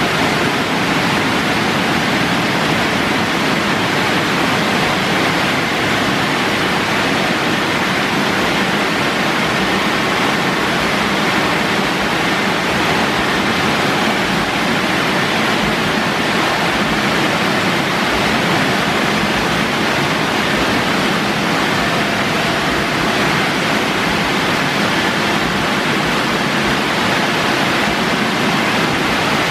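Ceccato Aquarama Stargate S7 rollover car wash running over a car, giving a loud, steady rushing noise.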